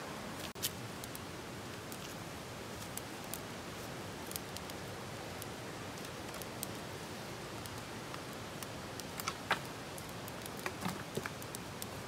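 Wood campfire crackling, with sharp pops and snaps now and then, over the steady rush of a mountain creek.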